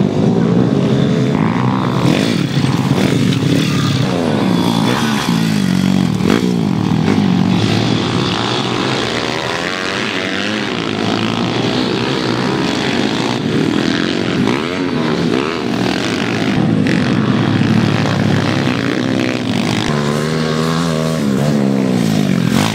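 Several pit bikes racing, their small engines overlapping and revving up and down, rising and falling in pitch as the riders accelerate and back off.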